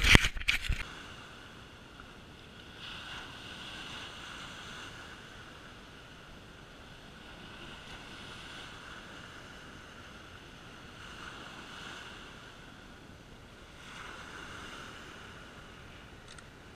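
Small waves breaking and washing up a sand beach, the surf swelling and easing every few seconds, with wind on the microphone. A few loud knocks at the very start come from a hand bumping the camera.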